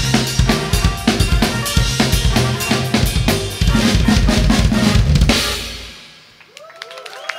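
DS Rebel Series drum kit with UFIP cymbals played hard in a fast funk groove, kick, snare and cymbals; about three and a half seconds in it builds into a louder cymbal-and-drum wash that rings out and fades by about six seconds. Near the end a few cheers rise from the crowd.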